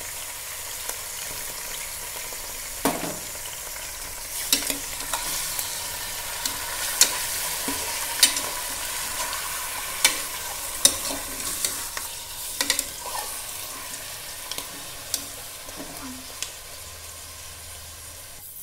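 Raw chicken and fresh mint and coriander sizzling in the still-hot oil left from frying onions in a pressure cooker, the stove already off, while a steel spoon stirs them with scattered sharp knocks and scrapes against the pot. The sizzle slowly dies down toward the end as the oil cools.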